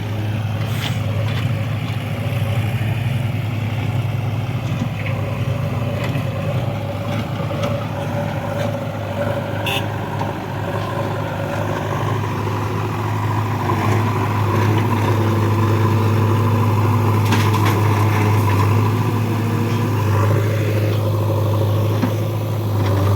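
Diesel engine of a JCB 3DX backhoe loader running steadily, a little louder from about 14 seconds in, with a few short sharp knocks.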